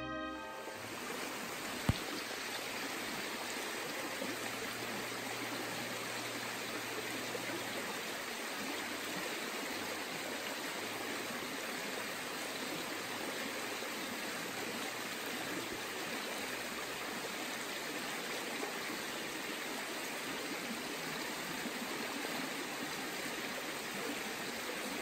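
A stream running steadily, an even rush of flowing water. A single sharp click sounds about two seconds in.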